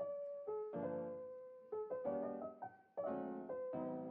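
Background piano music: chords and single notes struck one after another, each ringing and fading away.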